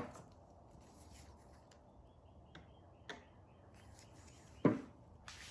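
Handling noise on a metal sewing machine: a few faint clicks, then one louder knock a little before the end.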